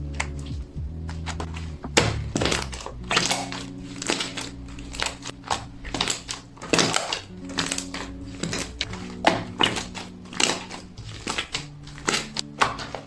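Soft mochi-like slime being squished and pressed by hand, giving an irregular run of sticky crackles and pops that starts about two seconds in. Soft background music with steady low notes plays underneath.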